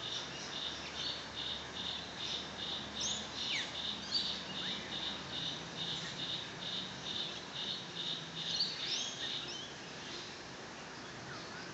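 An insect chirping in an even rhythm, about three chirps a second, which stops near the end. A bird's short falling whistles cut across it twice.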